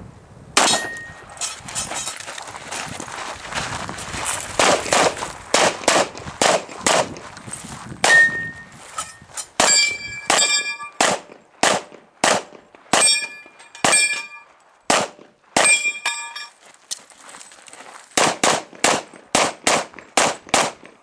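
Rapid pistol fire from a custom 2011 in .40 S&W: dozens of sharp shots, many in quick pairs. Steel targets ring after several of the hits, mostly in the middle of the run.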